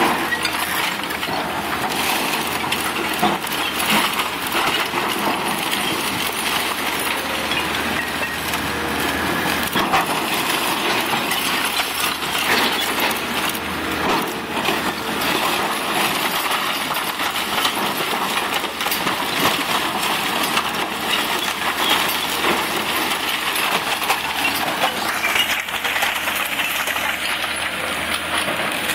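Komatsu and Cat hydraulic excavators tearing down a timber-and-brick building: a continuous clatter and crunch of splintering wood, breaking brick and falling debris, many small knocks and clinks, over the low steady run of the diesel engines.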